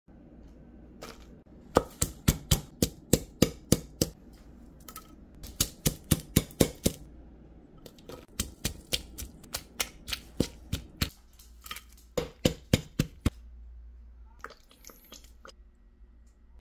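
Wooden pestle pounding chillies and garlic in a mortar: sharp knocks about three to four a second, in four short runs with pauses between.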